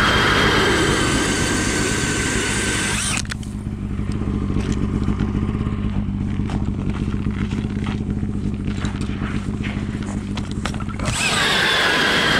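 Cordless DeWalt drill spinning an ice auger through lake ice with a steady high whine, which stops about three seconds in. Scattered knocks and scraping follow. Near the end the drill starts up again on the next hole, its whine dropping in pitch as the auger bites.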